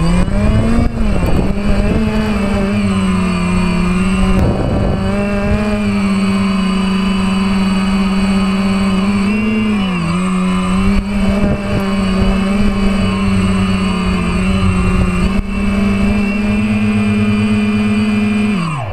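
DJI F450 quadcopter's four brushless motors and propellers buzzing steadily in flight, heard close up from the onboard camera. The pitch dips briefly about halfway, then drops sharply near the end.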